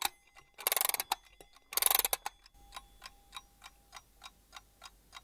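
Clock-ticking sound effect: two loud bursts of rapid clicking about a second apart, then a steady run of sharp ticks about three a second.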